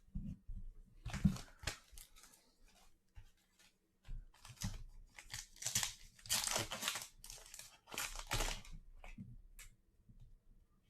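A 2021 Donruss football card pack wrapper being torn open and crinkled by hand: irregular rustling tears and crinkles, loudest about a second in and again through the middle stretch.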